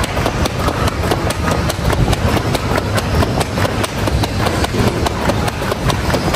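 Heavy battle ropes whipped in fast waves, slapping the rubber gym floor in a quick steady rhythm of several slaps a second.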